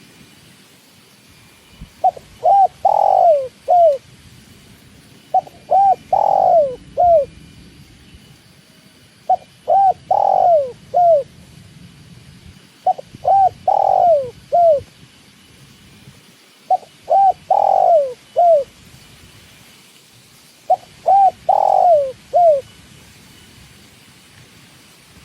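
Spotted dove (tekukur) cooing: six phrases about every four seconds, each of two short coos, one long louder coo and a short closing coo.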